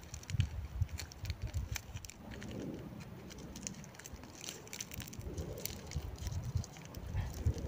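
Someone climbing a bare tree trunk by hand and foot: faint scattered scrapes and crackles against the bark, over an uneven low rumble.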